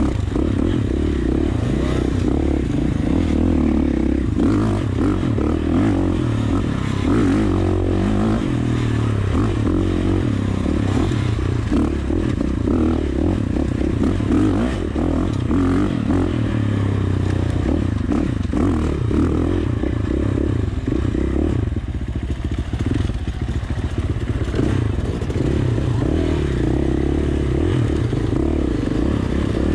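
KTM 450 dirt bike's single-cylinder four-stroke engine running under load on a rocky climb, the throttle opening and closing, with rocks and the bike's chassis clattering and scraping.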